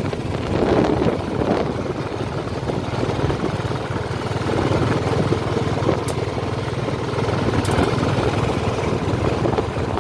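A vehicle's engine running steadily as it drives along a rough dirt track, with a constant low drone and road rumble.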